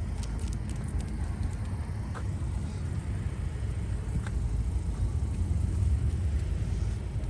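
Low rumbling outdoor street background, a little louder about five to six seconds in, with a few faint clicks.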